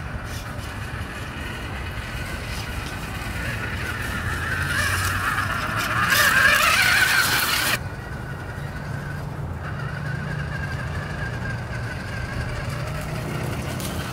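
Motor and gears of a Costco Max Power RC rock crawler whining as it drives. The sound builds a few seconds in to a loud full-throttle run that stops suddenly near the middle, then continues more quietly.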